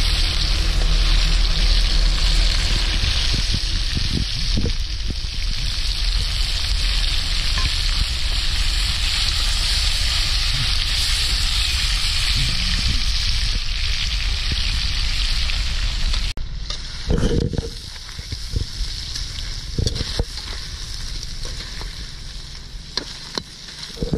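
Mantis shrimp deep-frying in hot oil, a steady, dense sizzle. About two-thirds of the way through it cuts abruptly to a quieter sizzle, with a few knocks.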